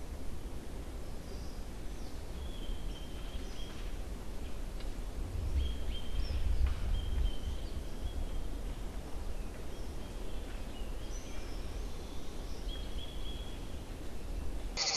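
Outdoor ambience: a steady low rumble with faint, short high bird chirps scattered throughout.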